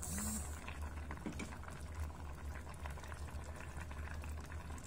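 Pork adobo bubbling in a stainless steel pot, the soy-based sauce and rendered fat simmering with many small, quick pops over a steady low hum.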